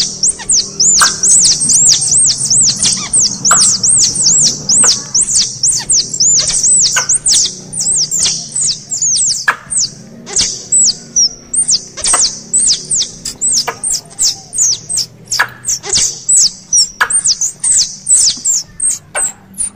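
Squirrel calls: a long run of short, high-pitched chirps, about two to three a second, with sharp clicks every second or so.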